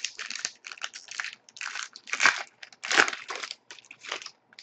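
A trading-card pack wrapper being crinkled and torn open, a run of irregular crackling rustles that is loudest about two and three seconds in.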